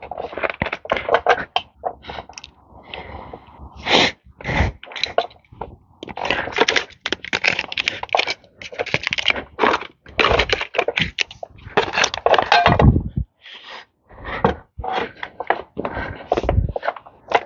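Tire plug repair tools worked into an ATV tire's rubber: repeated scraping and rubbing with short knocks, pausing briefly a few times.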